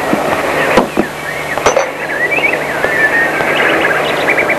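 A steady hissy background with short, high chirping sounds and two sharp knocks, about a second and nearly two seconds in.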